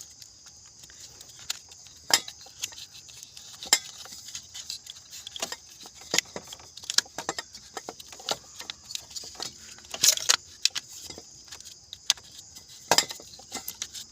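Irregular metallic clicks and clinks of an ignition coil and spark plug parts being handled and fitted, a few sharp clacks standing out, with a steady high chirring of crickets behind.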